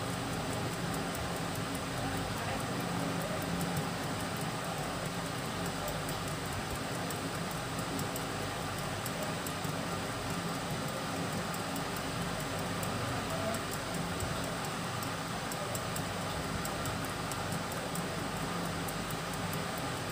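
Steady background hum and hiss, with no distinct sound standing out.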